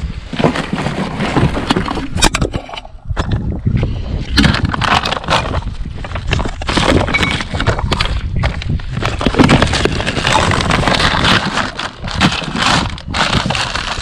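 Rummaging through a curbside recycling bin: plastic and paper packaging, including a large plastic pet-food bag, crinkling and rustling as it is pulled aside, with irregular crackles and knocks.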